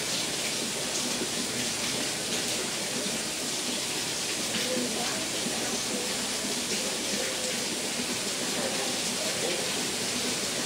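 Steady rushing, hissing rainforest ambience, even in level, with faint voices in the background.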